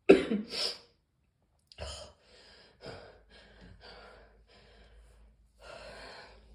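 A person coughing twice at the start, then catching their breath in a run of short, quieter gasping breaths, with a longer breath near the end: the tail of a morning coughing fit.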